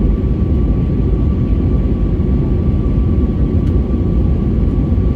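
Steady low rumble of an airliner in flight heard from inside the cabin, the drone of the engines and rushing air, with a faint thin steady whine above it.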